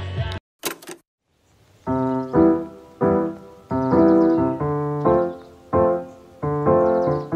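Background music stops abruptly just under half a second in and a short burst of noise follows. From about two seconds in a solo piano plays: chords that ring and fade, a new one roughly every two-thirds of a second.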